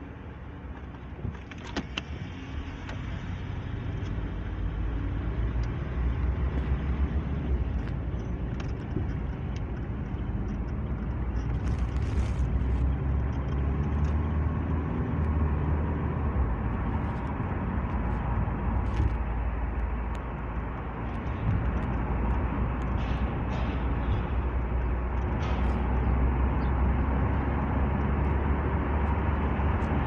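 Car driving, heard from inside the cabin. Engine and road noise build as it pulls away over the first few seconds, then run steadily at speed with a brief easing about two-thirds of the way through. A few light knocks and rattles are heard along the way.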